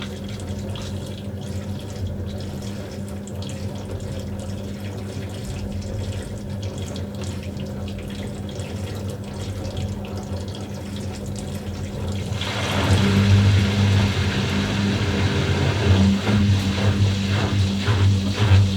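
Washing machine running mid-cycle: water flowing through it over a steady low electrical hum. About twelve seconds in, the water grows louder and starts to surge in uneven pulses.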